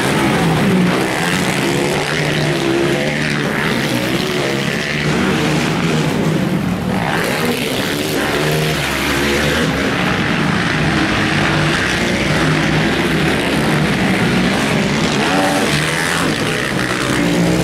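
Racing quad (ATV) engines revving on a motocross track, their pitch rising and falling.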